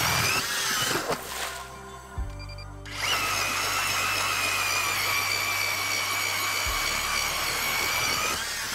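Electric ice auger drilling a hole through lake ice, its motor whining steadily; it drops off about a second and a half in and starts up again about three seconds in. Background music plays underneath.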